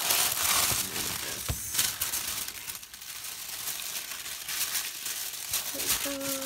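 Tissue-paper packaging rustling and crinkling as a spiral-bound journal is handled, lifted and set down, with a light knock about a second and a half in.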